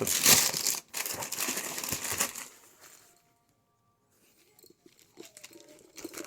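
Packaging crinkling and rustling as it is handled for about two and a half seconds, then dying away to quiet with only faint scattered sounds near the end.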